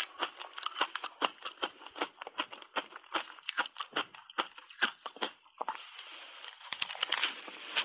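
Refrozen shaved ice crunching between teeth as it is chewed: a quick run of sharp crunches, several a second, with a short softer break a little past the middle as a fresh spoonful goes in, then more crunching.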